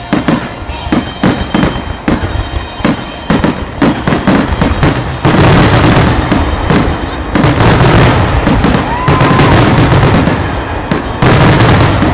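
Aerial firework shells bursting in rapid succession during a grand finale: quick bangs at first, then from about five seconds in a near-continuous barrage of overlapping explosions. A short whistle rises and falls briefly about nine seconds in.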